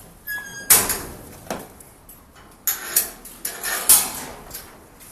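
Metal wire-mesh kennel cage door being handled: a brief high squeak, then a series of sharp metallic knocks and rattles, the loudest a little under a second in and about four seconds in.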